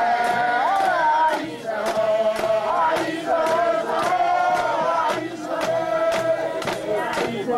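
Many voices singing a Takū rue dance song together in long, held chanted lines, with sharp percussive beats about twice a second.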